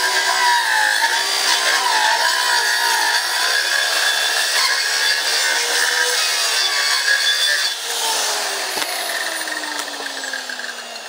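Power saw cutting wood, its motor pitch wavering under load. About eight seconds in the cut ends and the motor winds down with a slowly falling whine.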